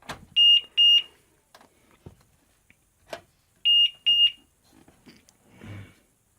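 Computer power supply alarm beeping in pairs of short, high, steady beeps, a pair about every three seconds: the supply's short-circuit protection signalling a short on the graphics card it powers.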